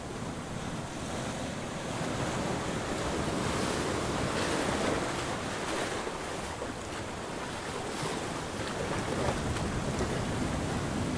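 Ocean surf washing in and out as a steady rushing noise, swelling about four seconds in and again near the end.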